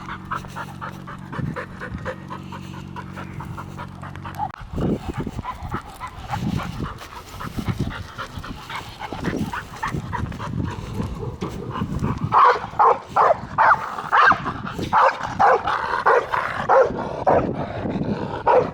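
Pit bull panting on a walk, then barking in repeated short, loud barks from about twelve seconds in, at a house she habitually barks at. A low steady hum stops suddenly about four seconds in.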